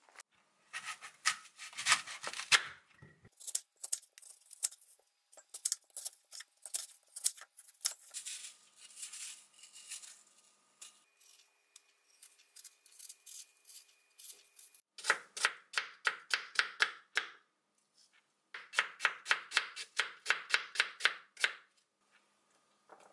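Kitchen knife cutting a crisp apple into pieces on a wooden cutting board: runs of quick, sharp crunching cuts, about four or five a second, stopping and starting several times.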